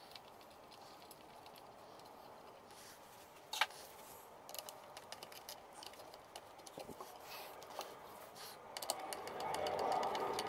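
Small wooden and metal parts being handled and fitted together by hand: one sharp click a few seconds in, a run of light ticks and taps, then rubbing and scraping near the end as a steel rod is worked down through a wooden disc and coil spring.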